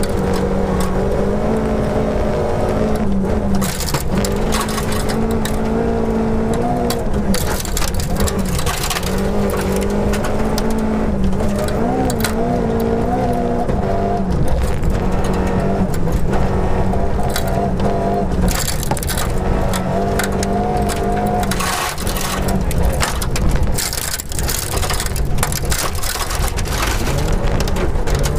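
Volvo 242 rally car's engine revving hard, heard from inside the cabin, its pitch holding steady for stretches and dropping briefly several times as gears change. Gravel and stones rattle against the car's underside throughout, thickest near the end.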